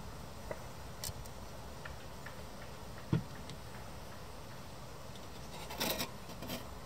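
Thin aluminium folding windscreen being handled and unfolded, giving two brief metallic rustles near the end. Before that there is only a faint steady hiss with a few small ticks and one dull knock about three seconds in.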